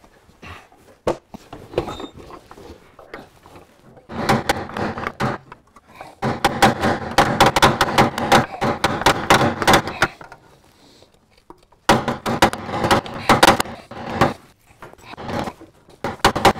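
Runs of rapid metal-on-metal knocking from hand tools working on a Series III Land Rover's steering linkage, in four bursts of a few seconds each, the longest about four seconds.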